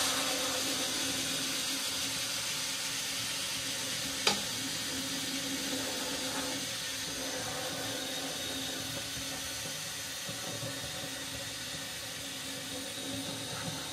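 Homemade PET-bottle sandblasting gun with a venturi nozzle blasting silica sand: a steady hiss of compressed air and sand that starts abruptly and eases slightly toward the end, with a faint low hum underneath and a single sharp tick about four seconds in.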